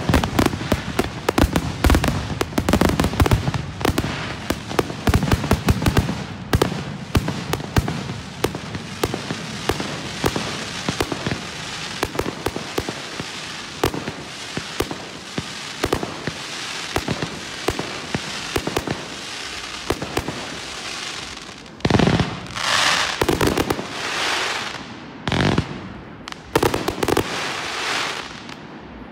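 Fireworks display: a dense barrage of rapid shell bursts and bangs that gives way to continuous crackling, thinning to a few separate crackling bursts near the end before fading.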